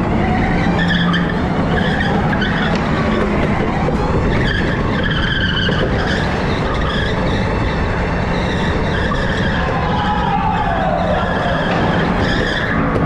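Electric go-kart driven fast around an indoor track, heard from the driver's seat: the tyres squeal in short, repeated bursts through the corners over a steady rush of wind and rolling noise.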